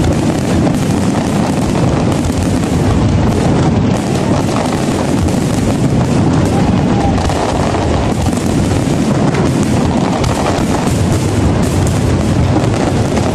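Fireworks display: a continuous barrage of bangs and crackling shell bursts with no pauses between them.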